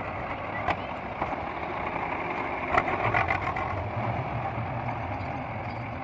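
Diesel engines of a backhoe loader and a tractor running at a steady low hum, with a few short sharp knocks, one about a second in and a cluster around three seconds in.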